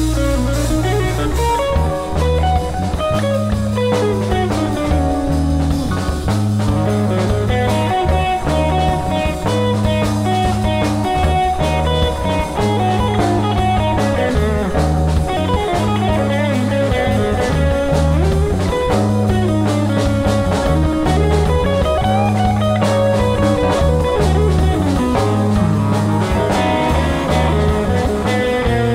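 Live funk band playing an instrumental passage: a semi-hollow electric guitar solo with bending lines, over a repeating electric bass figure and drum kit.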